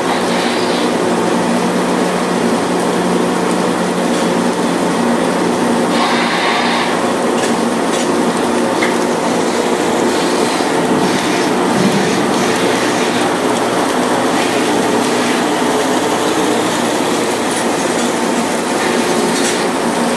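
Steady, loud machinery drone of a trawler's deck, with light rattling and clanking over it as the catch is emptied from the net. The hum shifts lower about halfway through.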